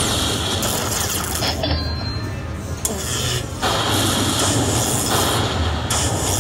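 Lightning Link slot machine counting up its hold-and-spin bonus, playing a run of noisy sound effects that change about once a second as each coin's value is added to the climbing win meter.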